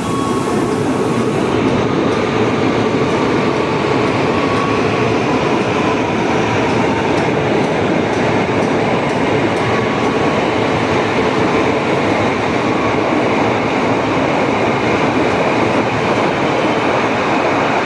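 CLI-125 Commuter Line electric multiple unit running past close by as it departs, a steady loud rumble of wheels on rails and passing cars.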